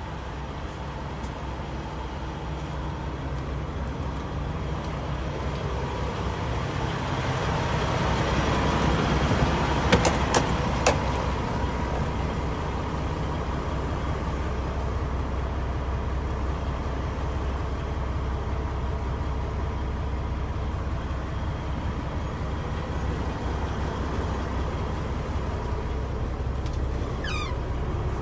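A Peterbilt 567 dump truck's Paccar MX-13 inline-six diesel idling steadily with a low hum. Three sharp clicks come close together about ten seconds in.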